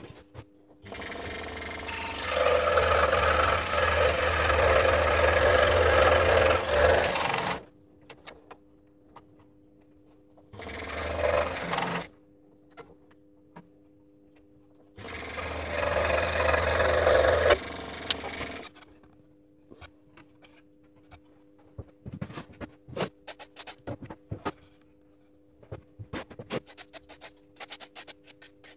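A power tool working wood, run in three bursts: a long one of about six seconds, a short one, then one of about three seconds. After the bursts come scattered light clicks and taps.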